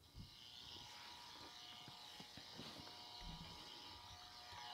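EMI meter plugged into a wall outlet, its speaker giving a faint steady hiss with thin buzzing tones. The sound is the audible sign of high-frequency noise (dirty electricity) on the household power line.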